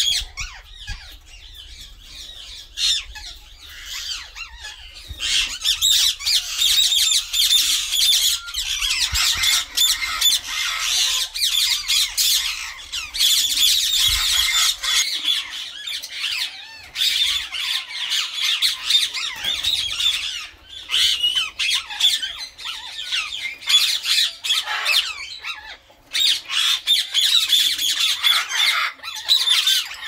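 A flock of Indian ringneck parakeets calling almost without pause, many high-pitched calls overlapping, with a couple of brief lulls in the later part.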